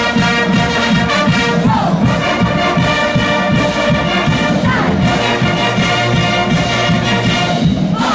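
Marching band playing loud brass chords over steady drumming, with sousaphones and trombones. The brass slides in pitch twice, around two seconds and again around five seconds in.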